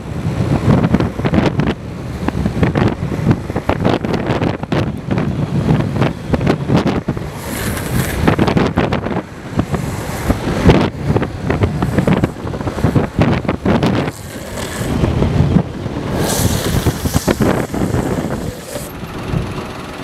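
Wind buffeting the microphone over the rumble of longboard wheels rolling fast on asphalt, gusty and uneven, with a stretch of sharper hiss about halfway and another near the end.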